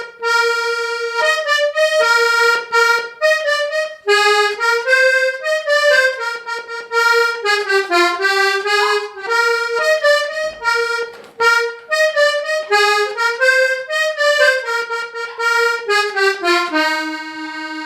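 Hohner Corona III diatonic button accordion in BbEbAb tuning playing a quick melody on the treble buttons: a run of short notes stepping up and down, with brief breaks between phrases.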